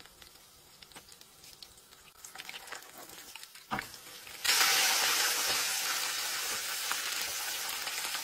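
Hot oil in a frying pan crackling softly around a pizza slice, then a short knock, then a sudden loud sizzle about four and a half seconds in as crinkle-cut chips go into the oil, which keeps up steadily.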